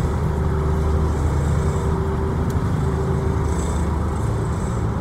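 Steady low drone of a 2003 Mitsubishi Pajero V33's 6G72 V6 engine running at low speed, heard from inside the cabin.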